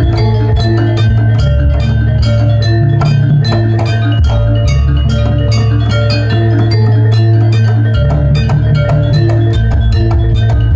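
Jaranan Pegon gamelan accompaniment playing: fast, dense drum strokes and ringing metal percussion notes over a sustained deep gong-like tone.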